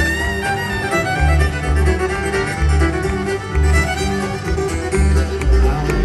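Live bluegrass band with a fiddle playing the lead line over upright bass notes and acoustic guitar rhythm.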